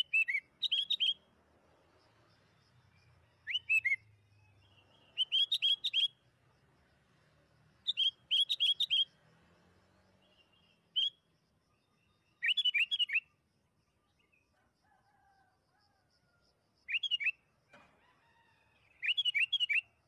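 Sooty-headed bulbul (kutilang) singing short phrases of three to five quick, bright notes, repeated every two to four seconds; a lure song meant to set other caged bulbuls singing.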